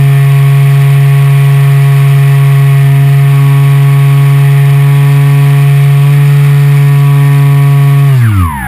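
Electric motor and propeller of a ParkZone Extra 300 RC plane, heard up close from the plane itself, humming at a steady high speed in flight. About 8 seconds in, the pitch drops steeply as the motor spools down.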